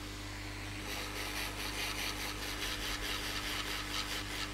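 Hot air rework station blowing air onto flux-soaked surface-mount chips, heating up to temperature: a steady rush of air over a low electrical hum. About a second in it gets a little louder and takes on a fast, even flutter.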